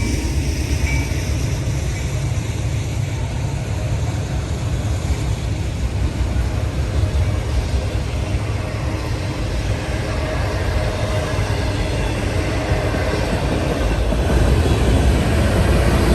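Freight train cars rolling past close by: a steady, loud rumble of wheels on rail, with a faint high squeal near the end.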